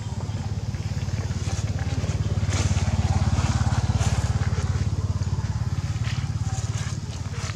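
An engine running nearby at a steady low rumble, swelling louder a little over two seconds in and easing off again, with faint scattered clicks over it.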